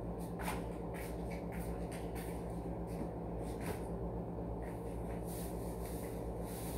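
Room tone: a steady low hum with a few faint scattered clicks and knocks.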